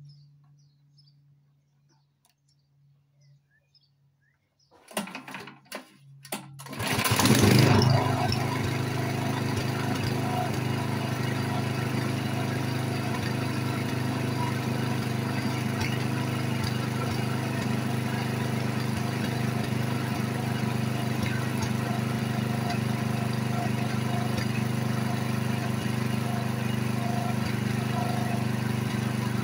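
Champion 196cc single-cylinder four-stroke petrol engine (a Honda GX copy) on a pressure washer starting: a few short bursts about five seconds in, then it catches about seven seconds in with a brief surge and settles into running steadily at constant speed.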